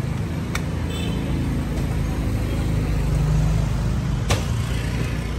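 Steady low rumble of street traffic, with two sharp knocks a little under four seconds apart: a cleaver chopping into a young green coconut.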